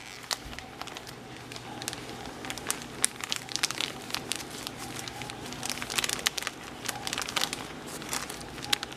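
Bag of powdered sugar being handled, crinkling with many small irregular crackles over a faint steady low hum.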